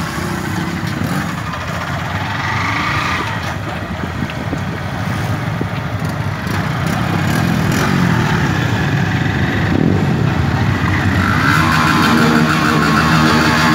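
Motorcycle engines running during a group ride, their pitch rising and falling as the riders work the throttle, with a stronger revving stretch near the end.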